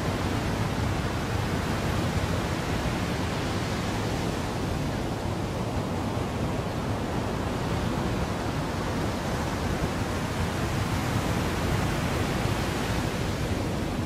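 Sea surf breaking and washing up a sandy beach, with a steady low rumble of wind on the microphone. The hiss of the surf eases a little in the middle and swells again near the end.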